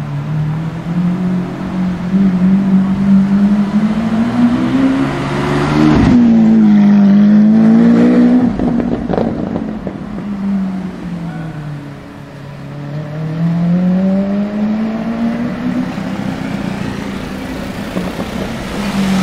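Lamborghini Aventador LP750-4 SuperVeloce's 6.5-litre V12 through its factory race exhaust, revving up as the car pulls away, with a sharp crack at its loudest about six seconds in. The engine note then falls away and climbs again in the second half.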